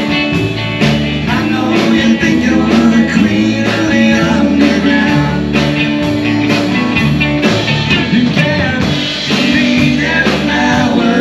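Rock music with singing, electric guitar, bass and a steady drum beat.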